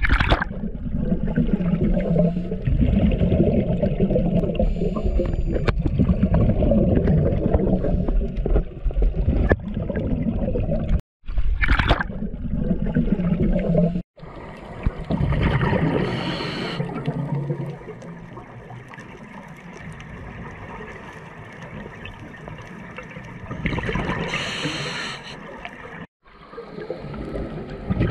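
Underwater sound through a GoPro's dive housing. Water churns and rushes against the housing at first. After that come scuba divers' regulator breathing and two bursts of exhaled bubbles, a few seconds apart.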